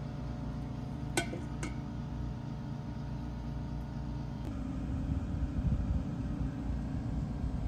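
Two sharp metallic clinks with a short ring, about half a second apart and about a second in, from a stainless steel pail knocking against metal while gear oil is drained from a combine head's gear case. A steady low mechanical hum runs underneath and turns rougher about halfway through.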